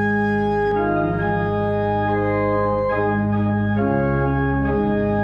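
Organ playing sustained full chords, moving to a new chord every second or so.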